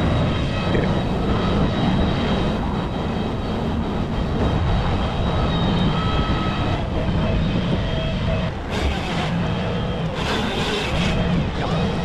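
A heavy engine running steadily, a continuous low drone with no change in pace.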